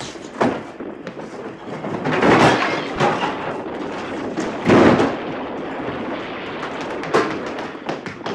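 Several sharp bangs and thuds over a steady rushing noise; the two loudest, each about half a second long, come about two and a half and five seconds in.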